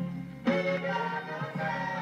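A song played from a 7-inch vinyl single on a turntable: steady bass notes under sustained melody notes, with a fresh phrase starting about half a second in.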